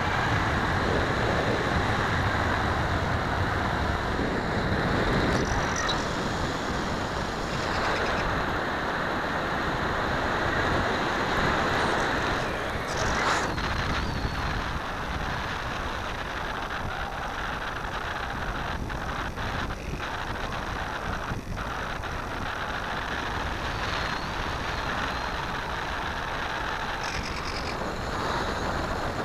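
Airflow rushing over the onboard keychain camera of a Sky Surfer RC glider in flight: a steady, noisy wind rush that eases slightly about halfway through.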